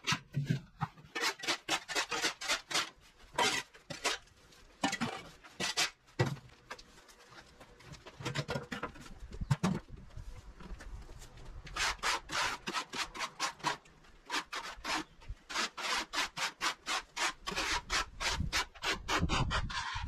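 Garden tools scraping over a paved path in quick strokes, about four a second, in runs with short pauses. Near the end it is a plastic leaf rake dragged across the ground.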